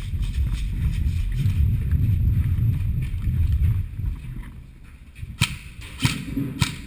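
Low rumble of a player moving with the microphone, from footsteps and gear jostling. It fades about four seconds in, and near the end come three sharp snaps about half a second apart.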